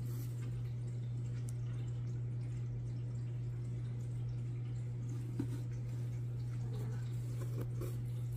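A steady low hum, with a faint click about five seconds in and a few light handling sounds near the end.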